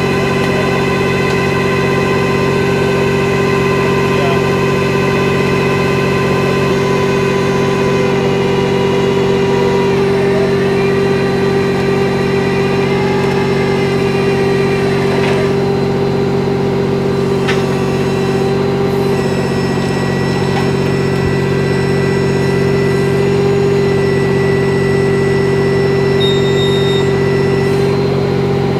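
Heavy truck engine idling steadily, a constant even drone. A fainter high whine shifts in pitch about ten seconds in and fades out a few seconds later.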